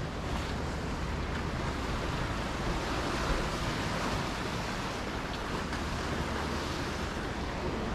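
Sea waves washing against the rocks at the foot of a cliff, a steady rushing wash, with wind rumbling on the microphone.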